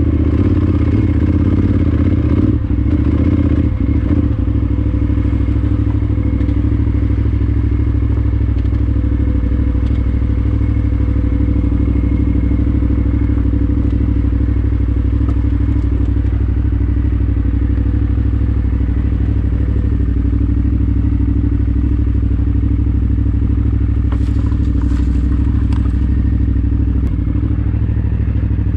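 KTM 990 Adventure R's V-twin engine running steadily through Akrapovič exhausts as the bike is ridden off road. Occasional knocks and clatter come from the bike over rough ground, a few near the start and a short run of them near the end.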